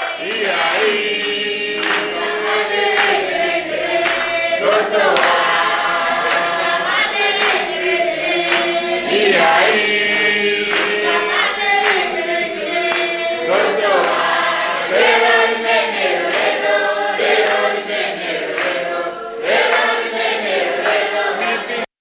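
A group of people singing a chant-like song together, with hand claps keeping time about twice a second. The sound cuts off suddenly near the end.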